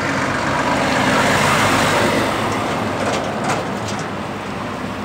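Volvo FH semi-truck driving past close by, its engine and tyre noise swelling to a peak about a second and a half in, then easing off as a car follows past.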